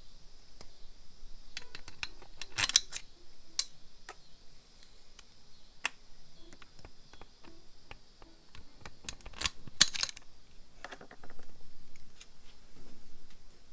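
Small metal bolts and tools clicking and clinking as intake manifold bolts are handled and started by hand, with two sharper clinks, one about three seconds in and one near ten seconds in.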